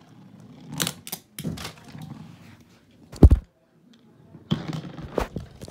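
Scattered plastic clicks and knocks from Beyblade tops and parts, with one heavy low thump about three seconds in, the loudest sound.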